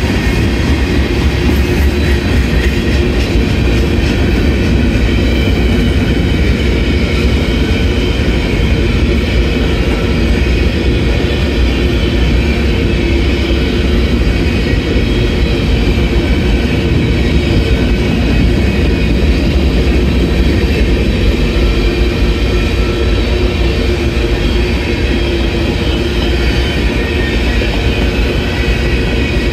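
Freight cars of a CSX mixed manifest train, covered hoppers and open-top gondolas, rolling steadily past, their steel wheels running loud and continuous on the rails.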